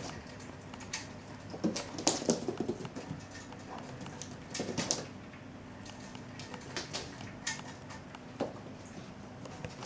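Cats' paws and claws scrabbling, skidding and landing on a wooden floor as they chase a laser dot: scattered taps and scuffs in irregular clusters.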